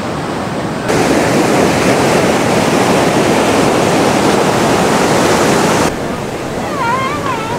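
Ocean surf breaking on a sandy beach: a steady rushing that gets louder about a second in and drops back about six seconds in. Voices of people on the beach come in near the end.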